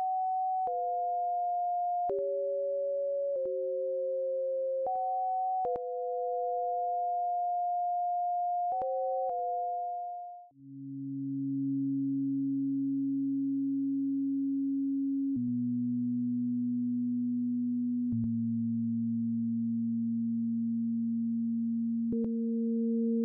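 Two sine-wave oscillators in the Reaktor software synthesizer sound together as pure steady tones, showing how two tones combine. Their pitches step to new intervals every one to four seconds, with a click at each change. About ten seconds in, after a brief dip, the pair drops to a lower register, and near the end the upper tone jumps up again.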